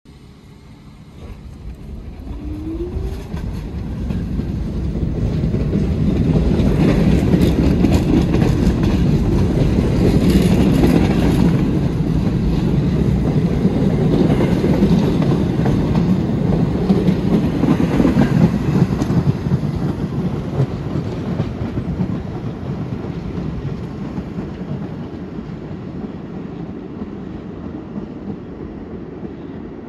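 R44 subway train on the Staten Island Railway pulling out of the station: a short rising motor whine as it starts, building to a loud run of wheels clicking over rail joints as the cars pass, then fading as the train moves away.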